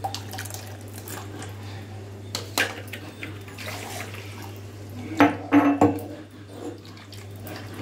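Glass and steel kitchenware being handled: bottles of chilled water and glasses knocking and clinking, with the loudest knocks about five seconds in, over a steady low hum.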